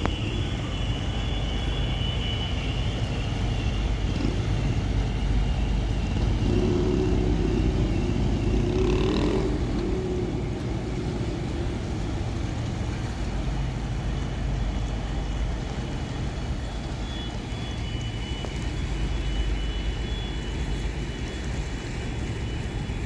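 Car alarms sounding: a high, wavering tone that fades out partway through and comes back for the last several seconds, over a steady low rumble that grows louder in the middle.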